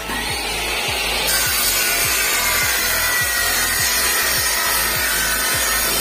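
Abrasive chop saw cutting through steel rebar: the cut-off wheel grinds into the bar with a loud, steady hiss that grows louder about a second in.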